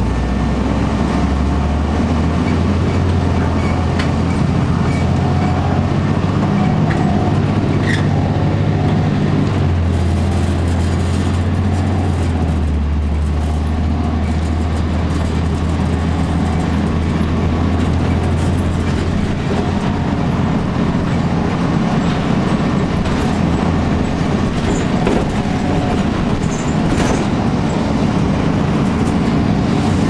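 Interior sound of a 2002 Blue Bird CS transit bus under way: its Cummins ISC inline-six diesel drones low under steady road rumble. The drone steps in pitch about ten and twelve seconds in, and a few sharp rattles sound, the first about four seconds in.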